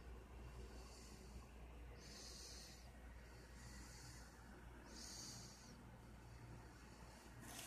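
Near silence with faint, regular breathing close to the microphone: a soft hiss about every second and a half, alternating stronger and weaker, over a low steady hum. A brief rustle near the end.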